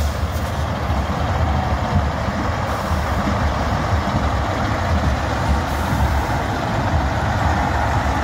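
Heavy diesel engines of 8x8 trucks carrying Pinaka multiple rocket launchers, running steadily with most of the sound low-pitched.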